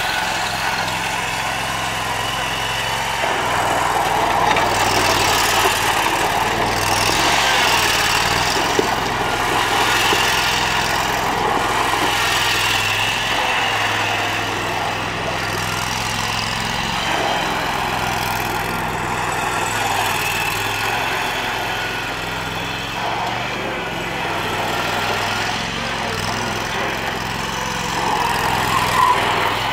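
Scag Turf Tiger zero-turn riding mower's engine running steadily as the mower is driven about, its sound swelling and easing as it moves.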